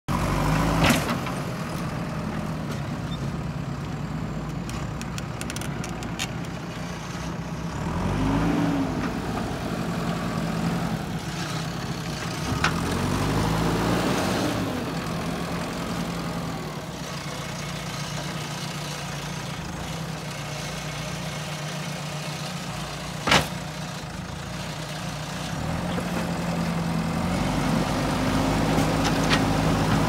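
A JCB backhoe loader's diesel engine running under load, its pitch rising and falling several times as the front loader bucket pushes dirt and stones. Two sharp knocks stand out, one about a second in and one a little past two-thirds of the way through.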